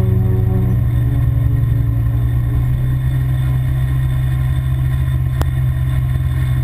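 Side-by-side UTV engine running at a steady speed while driving, heard from on board as a continuous low drone.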